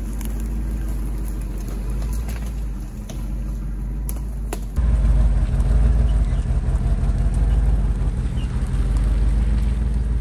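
1967 Ford F-250 4x4 Highboy pickup's engine running steadily as the truck drives, a continuous low rumble that gets louder about five seconds in.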